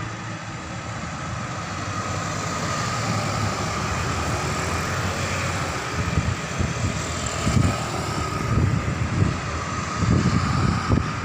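Large tour buses driving past: engine and road noise that builds steadily, with uneven low rumbling in the second half.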